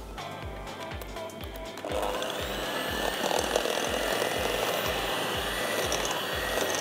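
Electric hand mixer switched on about two seconds in and running steadily with a high hum as its beaters whip cream cheese, icing sugar and cream in a glass bowl. Background music with a steady beat plays under it.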